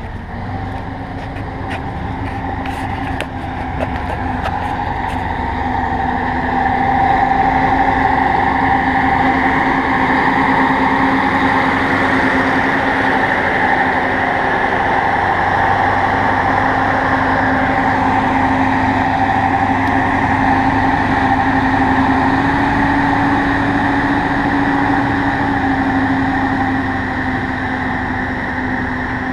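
MAZ timber truck's diesel engine running steadily with a continuous drone, louder from about six seconds in and easing slightly near the end.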